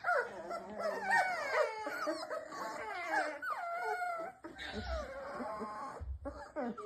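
Several newborn Presa Canario puppies whimpering and whining at once, high wavering cries that overlap and glide up and down as they coo themselves to sleep.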